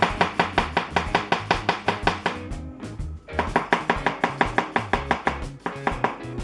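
Chef's knife slicing a red onion into thin feather-cut strips on a plastic cutting board: quick, even chops about five a second, with a short pause about two and a half seconds in.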